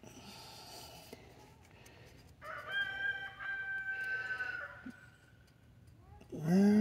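A rooster crowing once, a long call lasting a little over two seconds. Near the end comes a short, louder, low-pitched vocal sound.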